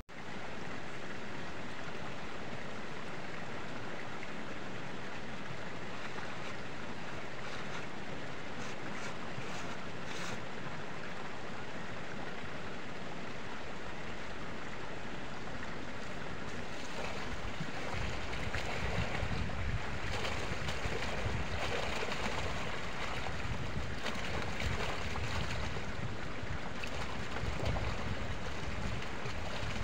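Steady rush of wind on the microphone and water, with the wind buffeting harder from about halfway through; near the end water pours out of a tipped plastic drum into the pond.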